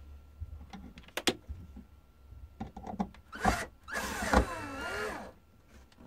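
Cordless drill driver driving a wood screw into a wooden rail, after a few light clicks as the screw is set. The motor runs in a short burst, then a longer run whose whine dips and rises in pitch.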